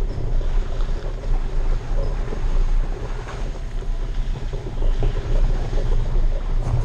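Wind buffeting the microphone of a camera mounted outside an off-road vehicle, over the vehicle's steady low rumble as it drives along a dirt trail on mud-terrain tyres.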